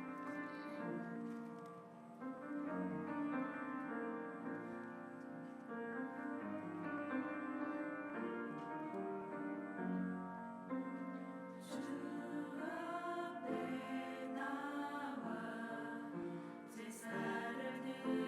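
Church choir singing a slow hymn with piano accompaniment.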